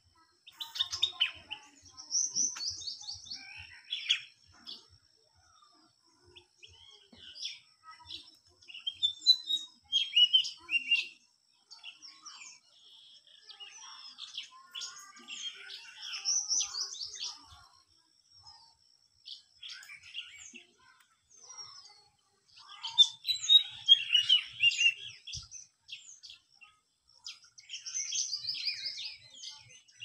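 White-throated fantail singing a short phrase of clear, high whistled notes that step down in pitch, three times: about two seconds in, mid-way and near the end. Other bird chirps come between the phrases, over a thin steady high tone that stops about two-thirds of the way through.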